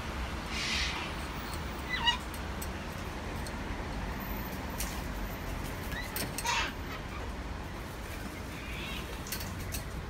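Sulphur-crested cockatoo giving a few short, soft, mewing calls over a steady low rumble of traffic.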